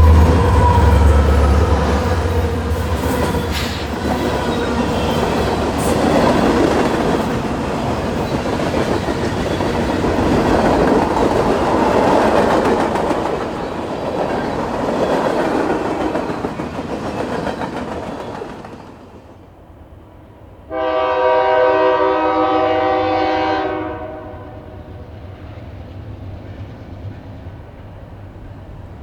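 Freight train rolling past, with heavy rumbling and wheel-on-rail noise that dies away at about 18 s. After a short lull, a locomotive's Nathan Airchime K3LA three-chime air horn sounds one steady blast of about three seconds, at about 21 s in. Quieter train noise follows the blast.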